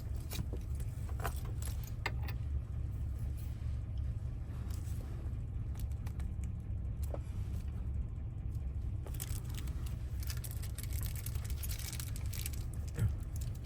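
Small metal lock wafers and parts clicking and rattling as they are handled and fitted into a van door lock cylinder, busiest for a few seconds after about nine seconds in. A steady low hum runs underneath.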